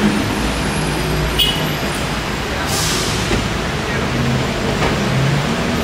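Steady vehicle running noise, with a sharp click about a second and a half in and a short hiss about halfway through.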